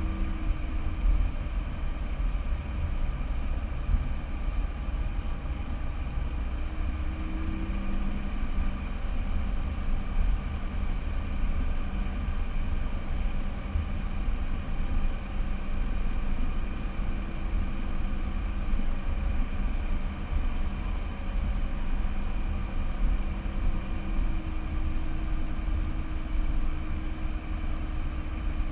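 Car driving at low speed, heard through a car-mounted camera: a steady low engine and road rumble whose engine note shifts slightly now and then.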